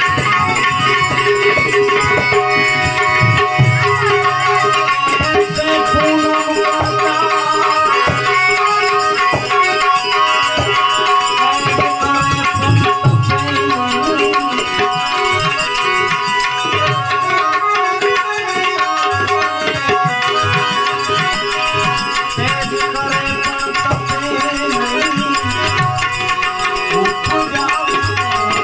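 Devotional bhajan music with tabla playing a steady beat under held melodic notes, no voice clearly singing.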